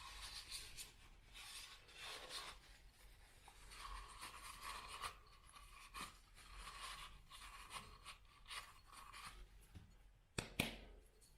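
Faint rustling and rubbing of a paper napkin wiping coffee grounds off the metal parts of a manual coffee grinder, with two light clicks near the end.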